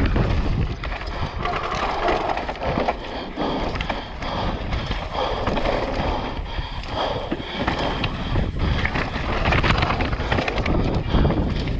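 Mountain bike descending a dirt singletrack at speed: wind rushing over the camera microphone, tyres rolling on dirt and the bike rattling over bumps, with no engine.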